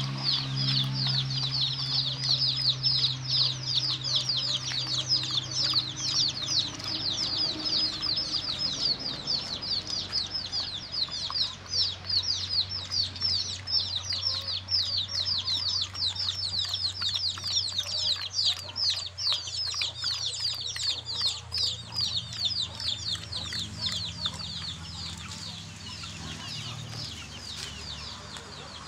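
High-pitched bird chirping: a dense run of short falling notes, several a second, fading toward the end. A low steady hum sits underneath.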